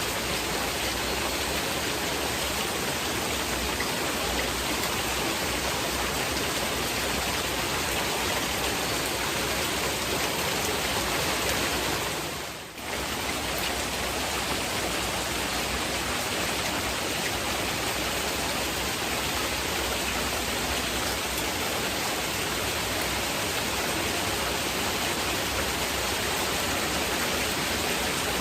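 Steady heavy rain, a dense even hiss, with a short dip in level about halfway through.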